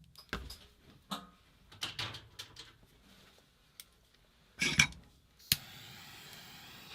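Small metal paintball-marker parts clicking and clinking as they are handled and set down, with a louder clatter just before five seconds in. About five and a half seconds in, a sharp click is followed by a steady hiss that keeps running.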